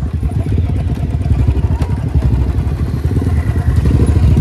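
Motorcycle engine running at low revs with a steady, rapid beat of firing pulses as the bike is ridden slowly down a rocky slope.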